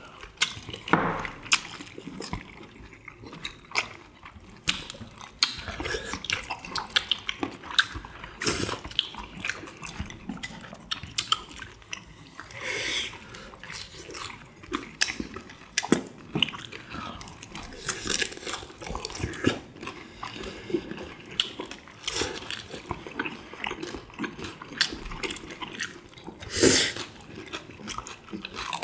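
Close-miked eating of tteokbokki and fried chicken: chewing and slurping mouth sounds, with many short clicks of metal chopsticks against ceramic bowls.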